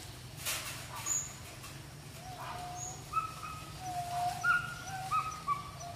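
A run of short, clear whistle-like animal calls, each rising quickly and then holding a level pitch, starting about two seconds in and coming several times a second near the end. A brief noise about half a second in, over a steady low hum.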